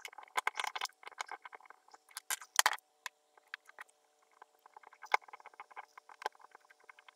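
Small irregular clicks, scrapes and rustles of a screwdriver turning the screws of a plastic choc bloc terminal strip while a wire link is pulled out and a resistor lead is pushed in. A few sharper clicks come a little over two seconds in and around five and six seconds.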